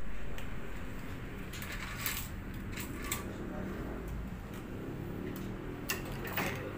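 Luxilon Savage Blue polyester tennis string being pulled and woven through a racket's strings on a stringing machine: soft swishes of string handling with a few light clicks, over a steady low hum.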